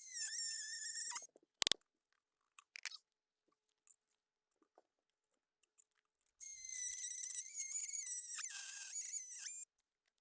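A power tool's high-pitched whine with a wavering pitch, running twice: about a second at the start and about three seconds from the middle on. A sharp click comes between the two.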